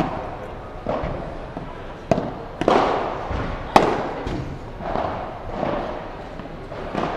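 Padel rally: about half a dozen sharp pops of the ball struck by rackets and hitting the court, spaced irregularly, the loudest a little past halfway. Under them runs a steady background murmur.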